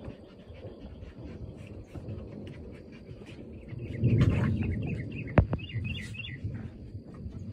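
Birds chirping, with quick runs of notes about four and six seconds in, and one sharp click a little over five seconds in.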